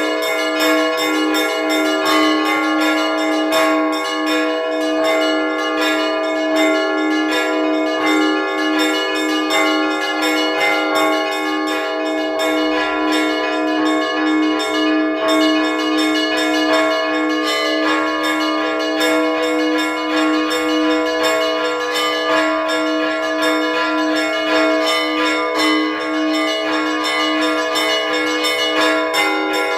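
Russian Orthodox church bells rung by hand: several bells sound together in a continuous, layered peal. One deeper bell keeps a quick, even beat under the higher bells. It is a Sunday ringing that calls the faithful to prayer.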